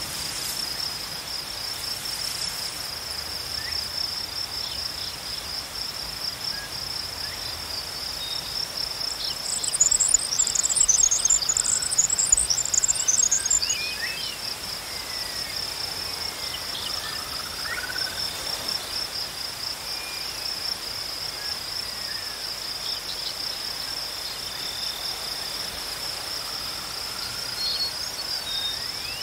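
Insects trilling in a steady, high, pulsing chorus. A flurry of rapid, very high bird chirps comes about ten seconds in, with a few faint bird whistles scattered through.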